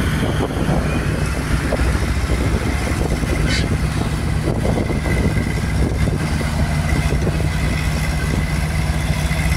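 Engines of a Weserhütte HW 70 hydraulic crawler excavator and a BM tractor running steadily as the excavator digs and loads, with a faint high whine held throughout.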